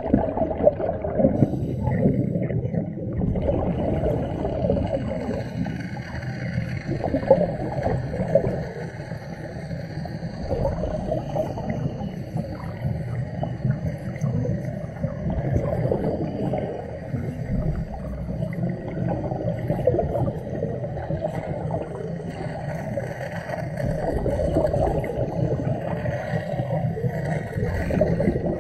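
Underwater wet stick-welding arc burning continuously, a rough, crackling buzz mixed with bubbling as gas escapes from the arc.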